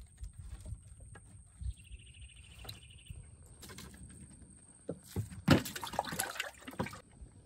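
A large eel-like fish splashing and slapping about in the shallow water of a boat's hold. There is a cluster of wet slaps and knocks from about five to seven seconds in, the loudest near five and a half seconds.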